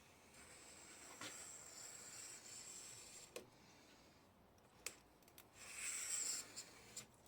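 Faint workshop handling sounds: a soft sliding rub for about three seconds, a few light clicks, then a louder, shorter slide about six seconds in.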